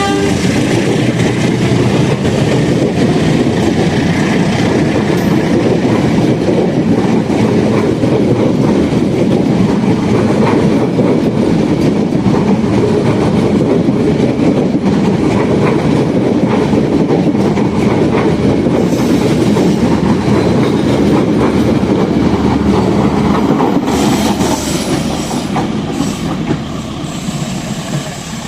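Locomotive-hauled passenger train rolling past at close range: a steady, loud rumble of wheels on the rails, easing off from about three-quarters of the way in as the last carriages go by.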